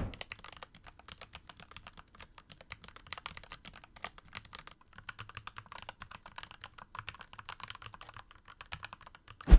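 Fast, steady typing on a mechanical keyboard: a quick, even run of key clicks, played as a sound test of keycap wall thickness.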